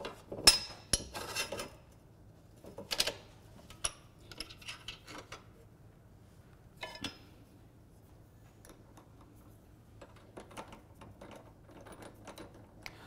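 Scattered metal clinks and knocks, with the loudest about half a second and three seconds in, as a benchtop drill press's table and vise are shifted by hand and its chuck is worked to fit a bit. The drill's motor is not running.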